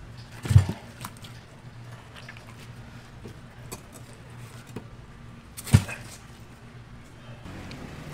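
Two heavy, wet thuds about five seconds apart as slabs of ocean sunfish flesh are dropped onto a wooden butcher's block, with a few light knocks and clicks between them.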